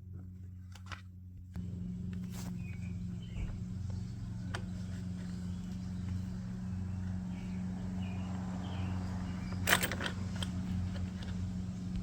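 Honda GCV160 single-cylinder engine of a pressure washer running steadily, growing louder and noisier about a second and a half in. A few sharp clicks sound near the end.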